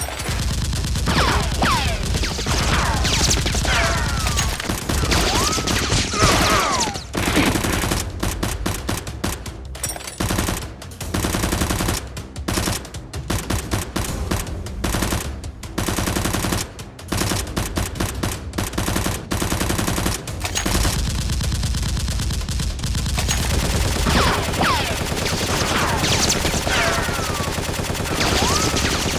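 Rapid bursts of machine-gun-style gunfire, stopping and starting, with whistling glides like ricochets mixed in: dubbed gun sound effects for the Nerf blaster fight.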